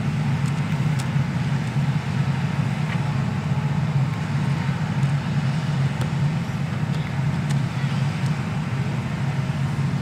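Hitachi EX200 hydraulic excavator's diesel engine running steadily with a low, even drone while the arm lifts the bucket out of the water.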